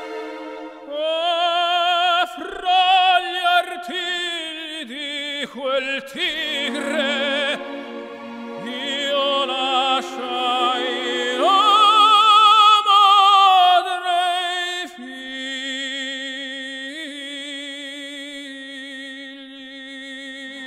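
Operatic singing with strong vibrato over orchestral accompaniment, as background music. It swells loudest twice, then settles into softer held notes for the last few seconds.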